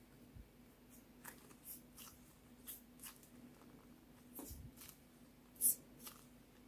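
Soft, scattered clicks and light taps of small hard objects being handled, irregular, with one sharper click about two thirds of the way through, over a faint steady hum.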